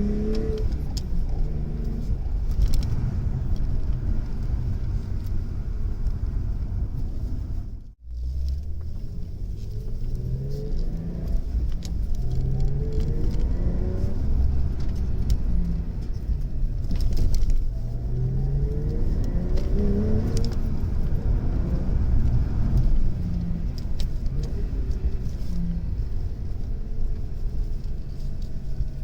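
Subaru Legacy 3.0R's 3.0-litre flat-six engine running while the car drives, its pitch rising several times as it accelerates, with a brief break in the sound about eight seconds in.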